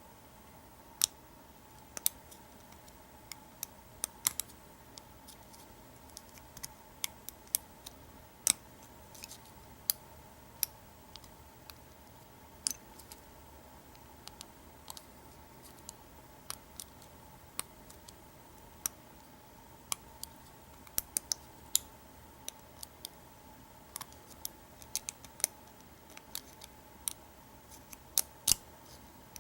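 Scattered sharp little clicks of a hook pick lifting and setting the serrated pin stacks of an American 700 series padlock under tension from a pry-bar tensioner, at irregular intervals of a second or so, some in quick pairs.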